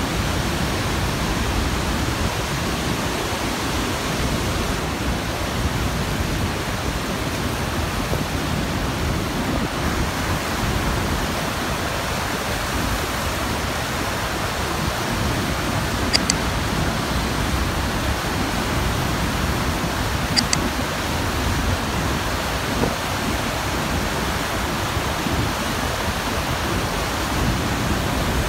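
Iguaçu Falls: a steady, dense rush of river water pouring over the brink of the falls. Two brief high ticks come about four seconds apart, past the middle.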